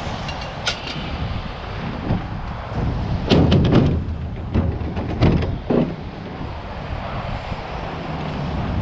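A few sharp knocks and bangs about three seconds in, then two more a couple of seconds later, over a steady low rumble of vehicle and outdoor noise.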